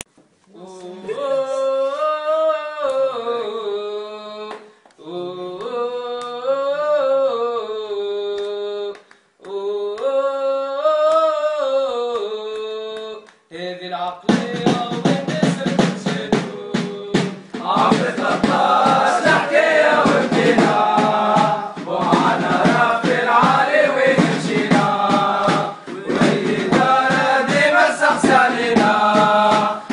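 Song intro: a voice sings a drawn-out 'ohh' melody in three phrases with short breaks, then about halfway through a drum beat and fuller backing come in under the singing.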